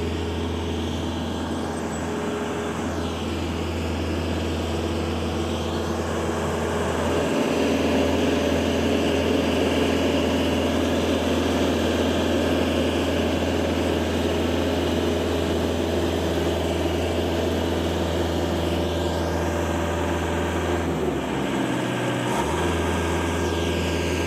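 JLG 660SJ telescopic boom lift's engine running steadily as the machine drives and moves its boom, getting louder about seven seconds in, with a brief dip in its low hum near the end.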